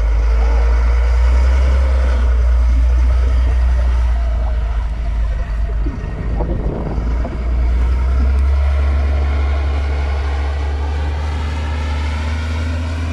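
A heavy engine runs steadily with a deep drone. There is a brief unsettled patch about six seconds in, then the drone carries on.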